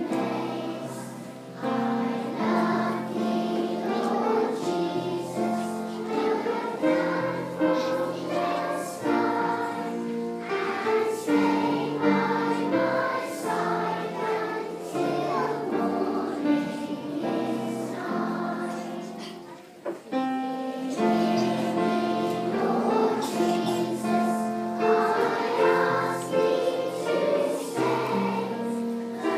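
A children's choir singing a song together to a steady musical accompaniment, with a brief break about twenty seconds in.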